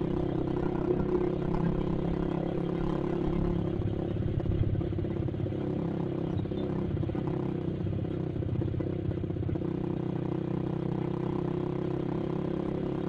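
Yamaha Vixion's single-cylinder four-stroke engine running at a steady cruise, heard from the rider's seat with wind and road rumble underneath.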